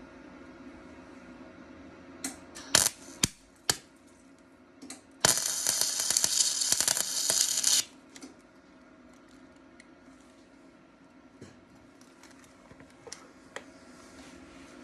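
Titanium welder tacking a sheet-steel patch panel. A few short crackling tacks come about two to three and a half seconds in, then a longer crackling weld of about two and a half seconds.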